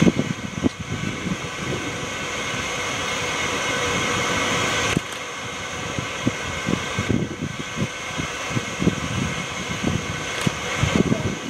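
Stopped BNSF diesel locomotives idling with a steady machine hum and whine. About five seconds in, part of the sound cuts off abruptly and the level drops, leaving a lower rumble with irregular low thumps.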